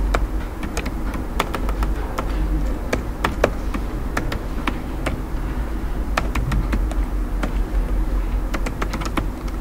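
Typing on a computer keyboard: irregular clicking keystrokes over a steady low hum.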